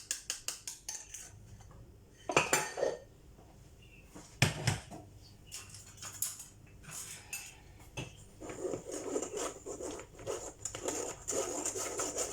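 Kitchen utensils clattering against a mixing bowl while flour and cocoa powder are sifted through a sieve. A quick run of light taps opens it, then two louder knocks about two seconds apart, and from about two-thirds through a longer stretch of scraping and rattling.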